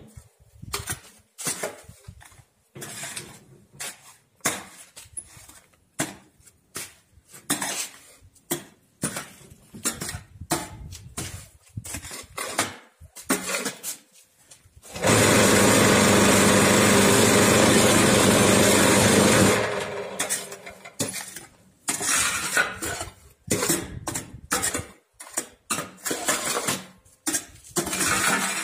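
Scraping and clanking of metal tools and concrete mix in the steel mould of a cinder-block machine. About halfway through, the machine's vibrator motor starts and runs loud and steady for about five seconds, compacting the mix, then cuts off and the scraping goes on.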